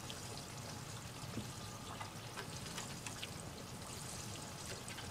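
Quiet, steady background noise like trickling or running water, with a few faint clicks.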